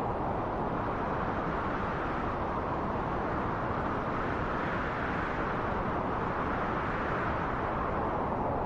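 Wind blowing steadily, a continuous rushing noise that swells and brightens briefly about halfway through.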